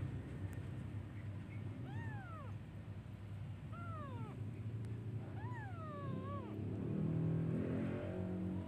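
Newborn kittens mewing for their mother: three thin, high calls, each rising then falling, the last one drawn out. A low background hum swells near the end.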